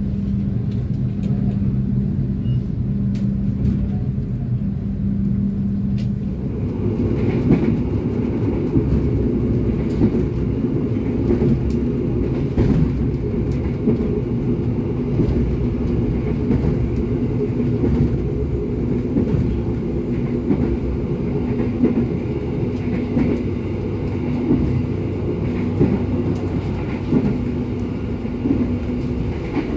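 Lodaya passenger train heard from inside the coach while it runs: a steady rumble of wheels on rail. For the first six seconds a steady hum sits over it; then the rolling noise turns louder and rougher, with scattered clicks, as the train gathers speed out of the station.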